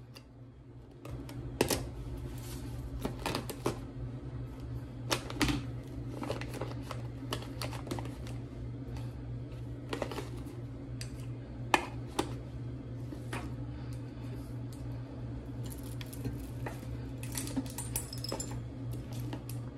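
Plastic makeup compacts, jars and tubes clicking and knocking against each other and the counter as they are packed into a clear vinyl toiletry bag, over a steady low hum that starts about a second in.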